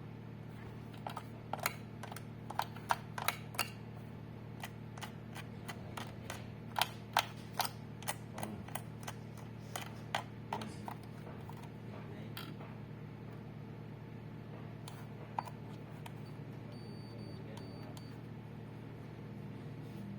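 A run of irregular sharp clicks and taps, most of them in the first half, then only one or two more, over a steady low hum.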